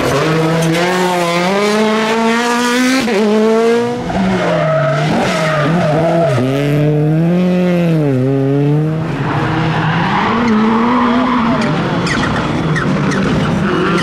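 Rally cars at full throttle, one after another: each engine revs up, drops in pitch at a gear change, then climbs again. The sound cuts abruptly from one car to the next about four and nine seconds in.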